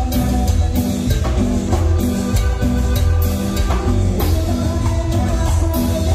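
Live Latin tropical dance band playing, with keyboards, congas and timbales over a bass line, at a steady danceable beat.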